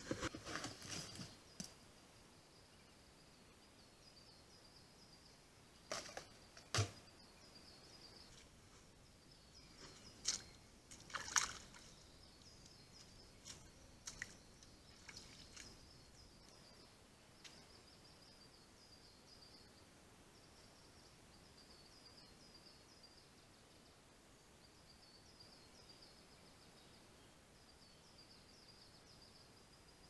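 Faint high-pitched insect chirping runs steadily through. There are a few sharp knocks and clatters at the start and again around 6 and 11 seconds in, from a bear handling a metal can at a bait barrel.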